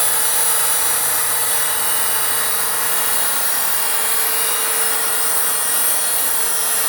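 Corded electric drill with a scrub brush attachment running steadily, its motor whining while the brush scrubs car carpet.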